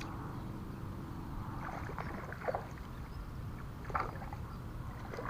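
Water splashing a few times, about two seconds in and again near four seconds, over a low steady rumble.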